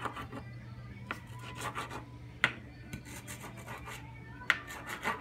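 Kitchen knife cutting green onions on a cutting board: slow, hesitant strokes with scraping between them and a few sharp knocks of the blade hitting the board, the loudest about halfway through.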